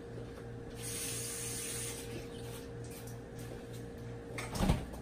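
A steady low hum, with a brief hiss about a second in and a dull thump near the end.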